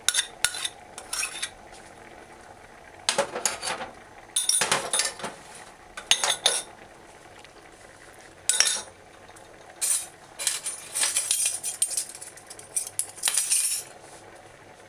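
A metal spoon scraping and clinking against a bowl and a stainless-steel saucepan as seasonings are scraped into the pot, in a handful of short clattering bursts spread a second or two apart.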